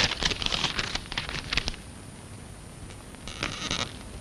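Paper rustling and crinkling, as sheets or an envelope are handled: a run of crackly sounds lasting over a second, then a shorter burst near the end.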